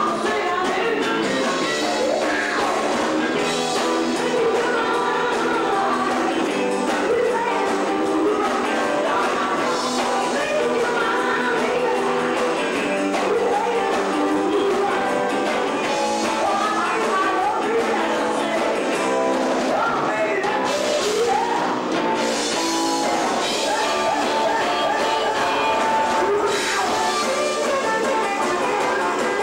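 Live rock band playing, a singer's voice over electric guitar, bass guitar and drums, steady throughout and thin in the bass.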